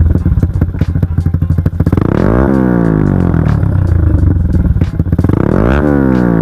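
Yamaha LC135 single-cylinder four-stroke engine revved through an Espada E6 32 mm aftermarket exhaust, its silencer insert left in. The engine pulses at low revs, then twice climbs quickly to a peak and falls back: once about two and a half seconds in and again near the end. The exhaust note is loud.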